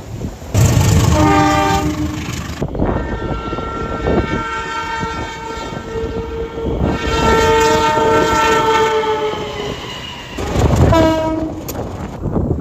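Indonesian train horns sounding the Semboyan 35 signal in three blasts: a short blast that cuts off suddenly, a long blast whose pitch sags slightly near its end, and a short blast near the end. Wheels clatter on the rails underneath.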